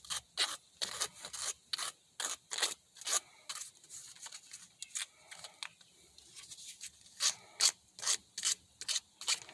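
Short abrasive strokes, about two a second with a pause midway, worked by hand on the solid copper tip of an old soldering iron to blunt its sharp point.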